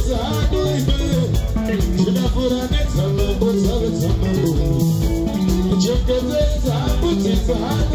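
Zimbabwean sungura band playing live: interlocking electric guitar lines over a bass guitar and drum kit, with a steady, quick beat and a shaker-like rattle from the cymbals.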